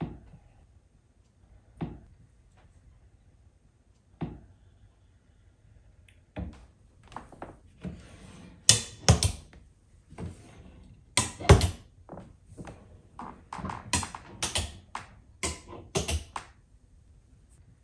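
Drop-down cabinet doors on metal lid-stay supports and hinges being opened and pushed shut by hand: a run of sharp clicks and knocks from the stays, hinges and door panels, sparse at first and then dense, loudest about 9 and 11 seconds in.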